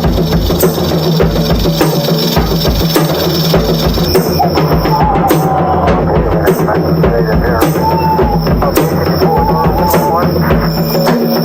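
Drum solo on a drum kit: dense, steady drumming with bass drum, the strokes packed close together throughout.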